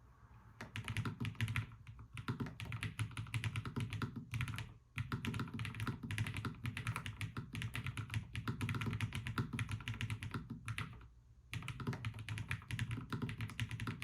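Fast typing on a LOFREE Flow low-profile mechanical keyboard: a dense, continuous run of keystrokes that stops briefly twice, about five seconds in and again around eleven seconds.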